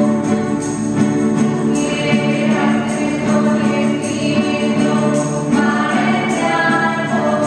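A small group singing a hymn together to strummed acoustic guitars, the music running on without a break.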